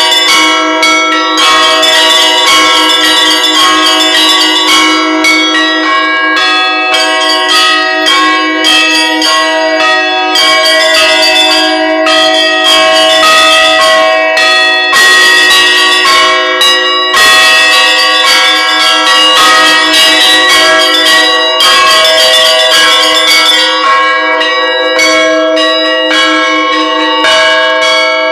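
Bells ringing continuously, many struck in quick succession so that their tones overlap and ring on.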